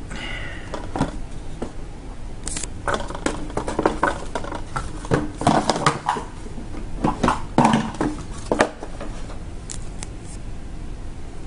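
Hands handling a cardboard phone box and its paper inserts and accessories: an irregular run of clicks, taps and rustles, busiest in the middle, that dies down near the end.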